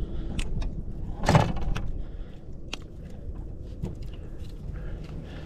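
Scattered clicks and knocks from handling a just-landed bass and fishing gear in a boat, with one louder knock about a second and a half in, over a low steady rumble.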